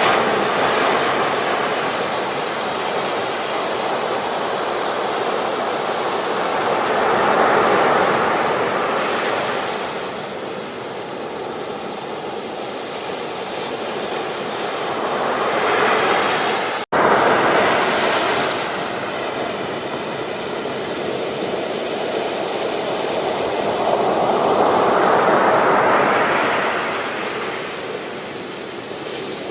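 Sea waves breaking and washing up on a beach, the surf swelling and fading in slow surges every eight seconds or so. Just past halfway there is a momentary dropout in the sound.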